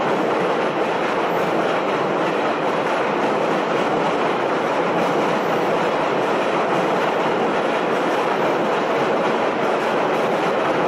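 JR Kyushu 800 series shinkansen standing at the platform: a steady, even rushing noise that does not change.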